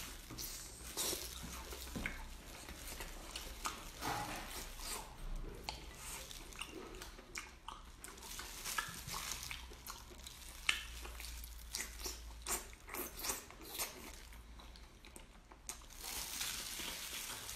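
A person biting and chewing braised octopus, with many short, sharp mouth clicks and wet chewing noises.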